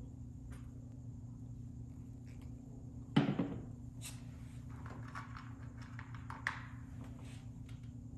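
Workbench handling noise while a length of harness wire is measured out: a thunk about three seconds in, then light clicks and rustling, over a steady low hum.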